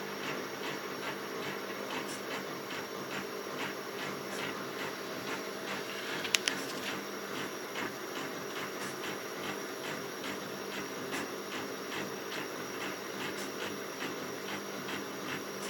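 Stepper motors of a 4-axis CNC hot wire foam cutter driving the wire carriages at slow cutting speed: a steady whining hum with a regular ticking of about three beats a second. A sharp double click about six seconds in.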